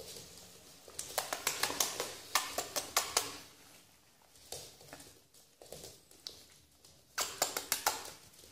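Yorkshire terrier puppy's claws clicking and scrabbling on a hard floor as it scrambles about, in two rapid flurries: one starting about a second in and lasting a couple of seconds, another near the end.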